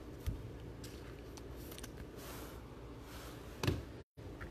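Faint rustling and light clicks of trading cards and their torn pack wrapper being handled, with a sharper tap about three and a half seconds in. The sound cuts out completely for a moment near the end.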